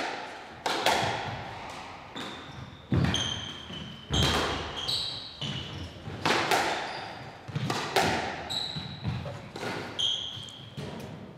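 Squash rally: the ball cracks sharply off the rackets and the court walls every second or so, each hit ringing briefly in the hall, with short squeaks of court shoes on the floor between shots.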